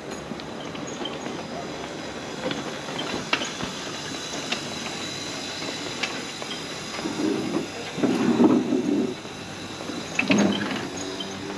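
Street ambience of a walk on paving: a steady rolling, rattling mechanical noise with scattered light clicks, and a louder low sound about eight seconds in and again briefly about ten seconds in.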